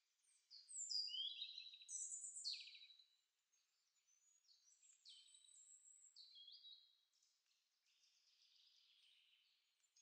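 A small songbird singing faint, high, thin phrases of quick gliding and trilled notes, loudest in the first few seconds and fainter after.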